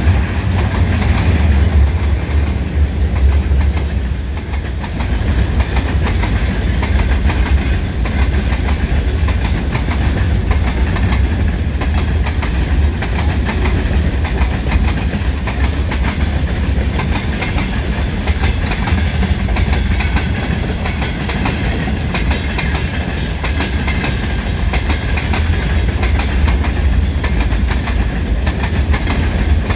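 A departing freight train rolling past, its wagons' wheels clicking over rail joints above a steady low rumble.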